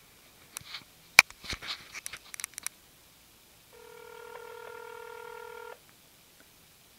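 Sharp clicks and taps of a mobile phone being handled, then one two-second burst of a telephone ringback tone through the phone's speaker, repeating four seconds after the last one: the call is ringing at the other end and has not been answered.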